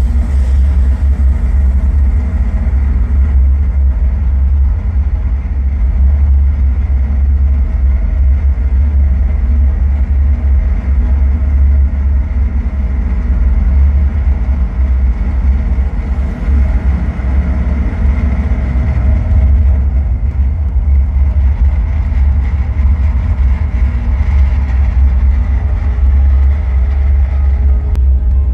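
Deep, steady rumble of a rocket launch on a launch-film soundtrack, with most of its weight in the low bass and a fainter rushing noise above it.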